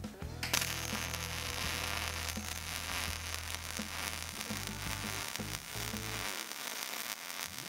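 Millermatic 211 MIG welding arc crackling and sizzling steadily as a continuous bead is run, starting about half a second in.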